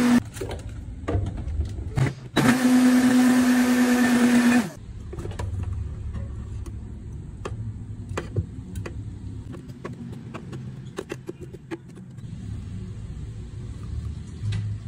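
Countertop blender motor running with a steady whine as it blends a thick frappe, cutting out just after the start, running again for about two seconds, then stopping. After that come scattered light taps and scrapes as the thick blend is scraped out of the plastic jar into a glass.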